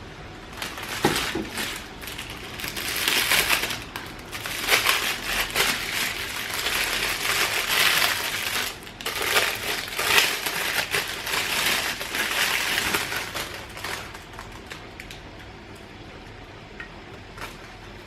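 Packaging being handled during an unboxing: crinkling and rustling with small clicks and knocks, dying down about 14 seconds in.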